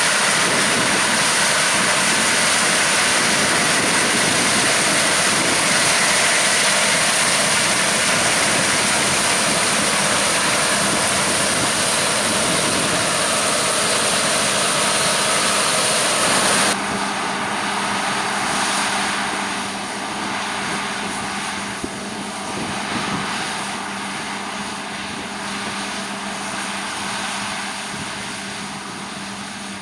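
Harvest machinery working: a loud, steady engine-and-machinery noise that cuts off abruptly about 17 seconds in. It gives way to a quieter engine hum with a steady low tone that gradually fades away.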